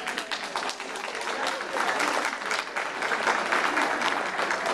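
Audience applauding: scattered claps that build into steady, fuller applause about a second and a half in.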